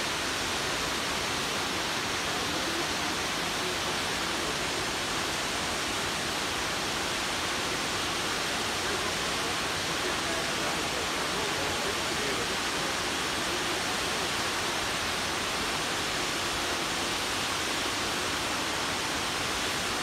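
Large waterfall cascading down a broad rock face: a steady, unbroken rush of falling water.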